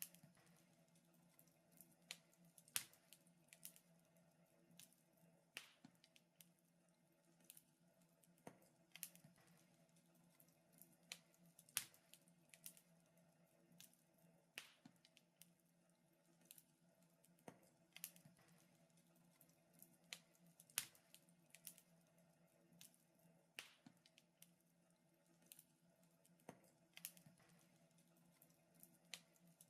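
Wood fire crackling, with irregular sharp pops, a few of them much louder, over a faint steady hum.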